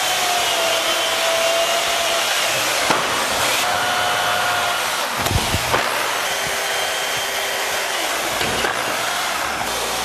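Steady rushing, whirring noise of a small motor, like a blower or hand power tool, with faint whining tones that waver in pitch.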